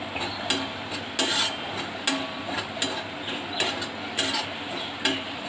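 Metal spatula scraping and tapping against an aluminium kadai in repeated, irregular strokes, about one or two a second, while it stirs semolina that is dry-roasting over the flame.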